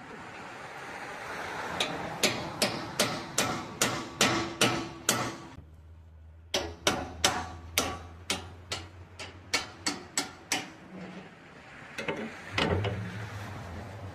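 Hammer striking a steel punch to drive a hinge pin out of a wood chipper's chute. The blows come in two quick runs of about three a second, with a short pause between them about six seconds in, and a couple of lighter blows near the end.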